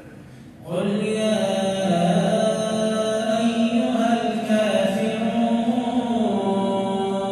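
Quran recitation: a single man's voice chanting melodically through the mosque's microphone, holding long drawn-out notes. It begins after a short pause, about a second in.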